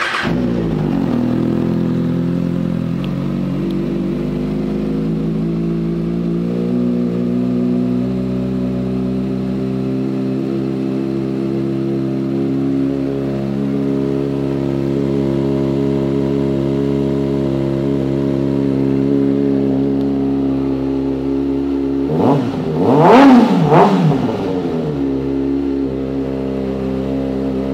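2014 Kawasaki Ninja ZX-6R's 636 cc inline-four, through a Two Brothers aftermarket exhaust, just started and idling steadily, the idle settling a little lower in the first couple of seconds. About 22 seconds in it is revved briefly, the pitch rising sharply and falling back to idle, the loudest part.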